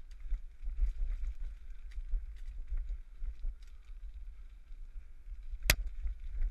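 Bicycle rolling along a rough dirt towpath, heard through a bike-mounted GoPro: a low, uneven rumble of tyres and wind on the microphone, with small rattles and clicks. One sharp knock comes near the end, a bump jolting the bike and camera.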